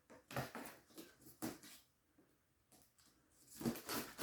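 Soft scuffs, rustles and light knocks of a cardboard box being handled, several in the first two seconds and more near the end.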